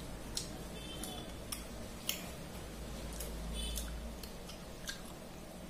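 Fingers scraping and tapping a stainless steel plate while gathering the last of the food, giving a scatter of sharp light clicks, a few with a faint metallic ring, over a steady low hum.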